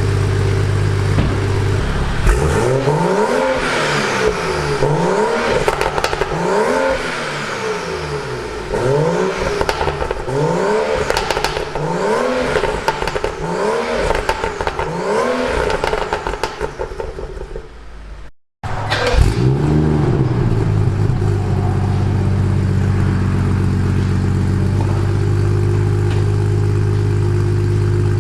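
BMW M235i's turbocharged inline-six, breathing through a newly fitted catless downpipe, idling, then blipped in about ten quick revs that rise and fall in pitch. After a short break it settles back to a steady idle.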